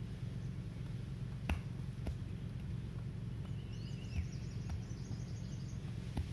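Open-field ambience: a steady low hum with a few sharp taps scattered through it, and a short, high chirping trill near the middle.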